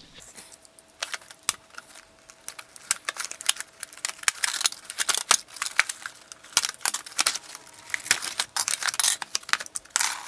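Toy blaster packaging being handled and unpacked: a busy run of crinkling, rustling and sharp clicks from the cardboard box and its plastic inserts as the blaster and its parts are pulled out.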